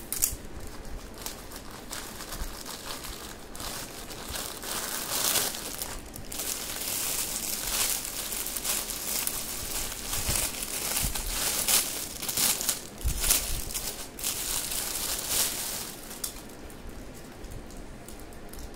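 Plastic packaging crinkling and rustling in uneven bursts as a printed plastic courier mailer and the clear plastic wrap around a saree are handled and opened, loudest through the middle.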